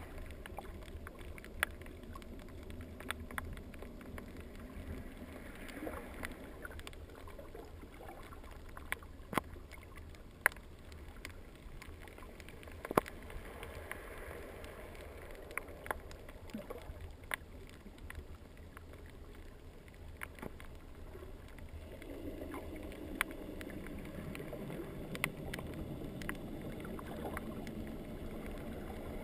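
Muffled underwater ambience picked up through a waterproof camera housing: a low wash of water with scattered sharp clicks, the low rushing swelling louder for the last several seconds.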